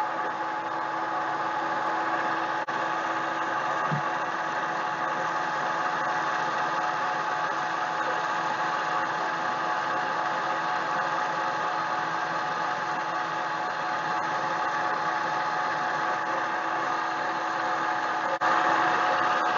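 Mini lathe running steadily, its motor giving a continuous hum with a couple of held tones, slightly louder near the end.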